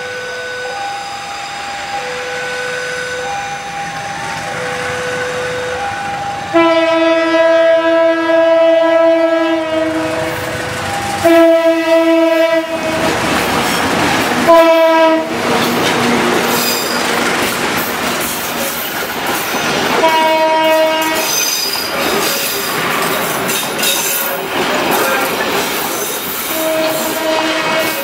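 A two-tone level-crossing warning alarm alternating between a low and a high note, then a CC201 diesel-electric locomotive's horn sounded in five blasts, the first long and echoing, as the train passes close by with wheels clicking over the rail joints and squealing.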